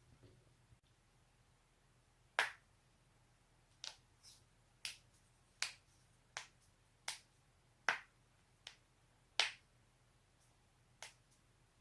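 Knee joint popping repeatedly: about eleven sharp cracks, most in a steady run roughly one every three-quarters of a second.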